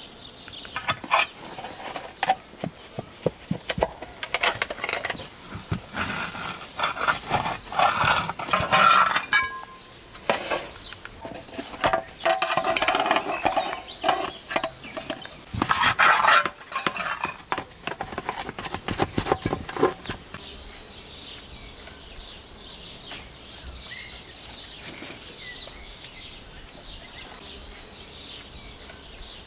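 Ceramic plates and cutlery clinking and clattering on a table as pizza is served, in a busy run of knocks and clicks that dies away about two-thirds through, leaving a quiet steady background.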